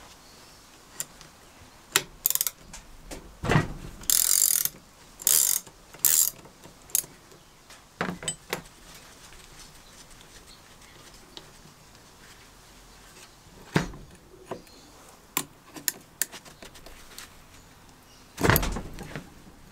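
A rusty benchtop lever metal shear being handled and dismantled: scattered sharp metal clicks and knocks, a few rasping metal-on-metal scrapes several seconds in, and a heavy clunk near the end as a wrench goes onto the pivot bolts.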